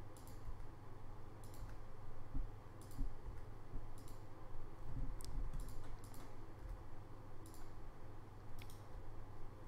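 Computer keyboard and mouse clicks, irregular, roughly one a second, over a low steady hum.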